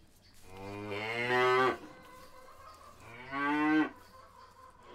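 Cattle mooing: two long moos, the first starting about half a second in and loudest toward its end, the second, shorter one about three seconds in.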